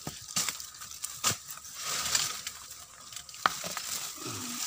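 Hand pushing through undergrowth and dry leaf litter to pull a sprouting coconut from the ground: rustling and crackling of leaves, with several sharp snaps of twigs or dry stems.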